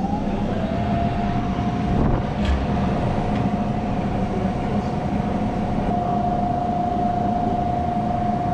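Commercial prep table's refrigeration unit running, a steady mechanical noise with a whine that rises in pitch during the first second, then holds steady.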